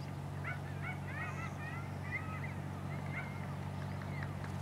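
The Twilight Express Mizukaze's diesel-electric engines give a steady low drone as the train runs past in the distance, with short high chirping calls over it.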